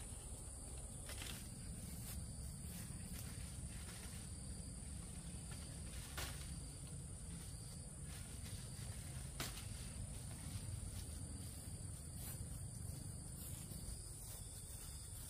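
Insects shrilling steadily at a high pitch, with scattered light clicks and knocks over a low rumble.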